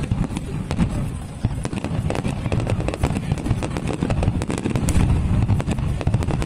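Aerial fireworks shells bursting in close succession: continuous deep booms with many sharp crackles scattered through them.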